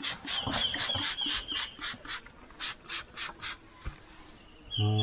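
Hand spray bottle squeezed rapidly, giving short hissing spurts about five times a second in two runs with a brief pause between them. It is spraying pest treatment onto vegetable plants. Short high chirps sound alongside the first run, and a low voice begins near the end.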